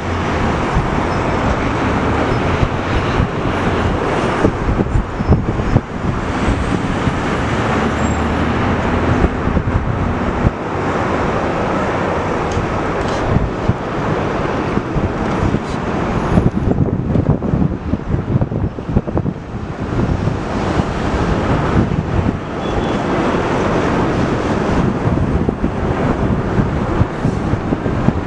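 Strong wind buffeting the microphone over a steady roar, with a faint high whine drifting in pitch during the first several seconds.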